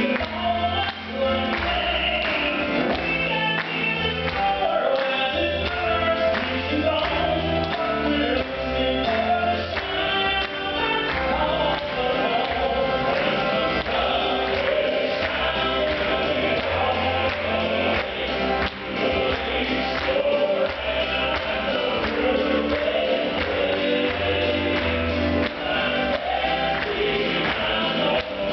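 Southern gospel male vocal quartet singing in close harmony over instrumental accompaniment, with a bass line and a steady beat.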